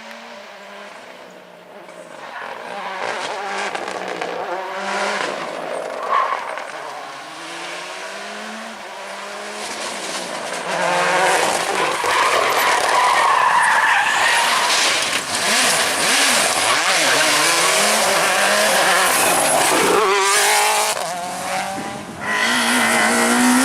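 Rally car engines revving hard and changing pitch through gear changes as the cars drive a stage at speed, with tyres squealing and skidding. The sound grows from about two seconds in, is loudest through the second half, dips briefly near the end and comes back loud.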